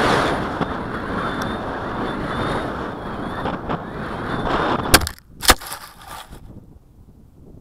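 Wind rushing loudly over the microphone of the FX-61's Mobius canopy camera, slowly fading, then two sharp knocks about half a second apart near five seconds in, after which only a faint hiss is left: the broken-off camera canopy falling and striking the ground.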